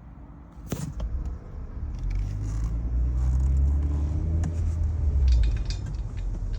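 Car moving off and running on the road, a low rumble building over the first two seconds and then holding steady, with a sharp click near the start and scattered light clicks and rattles over it.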